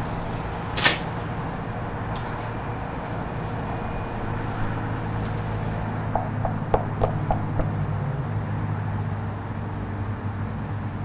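Knuckles rapping on a front door, about six quick knocks some six seconds in, over a steady low hum. A short, sharp hiss about a second in is the loudest sound.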